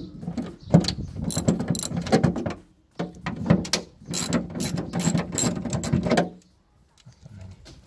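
Hand ratchet clicking rapidly as it turns out a screw, in two long runs with a short break about three seconds in.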